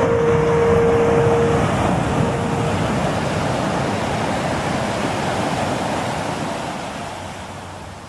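Steady rushing noise of ocean surf, swelling in the first second and slowly fading away over the last couple of seconds.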